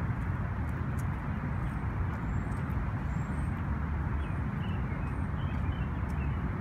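Steady low rumble of city traffic, with a few faint high chirps above it.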